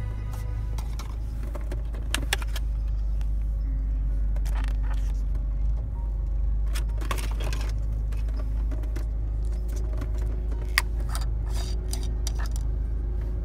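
Hands handling a Carall Regalia car perfume bottle and its clear plastic packaging insert: scattered clicks and light rattles, the sharpest about eleven seconds in. Under them runs the steady low rumble of the car.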